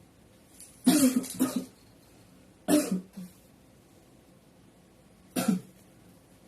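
A person coughing hard in three short bouts: a double cough about a second in, another near three seconds, and a last single cough past five seconds.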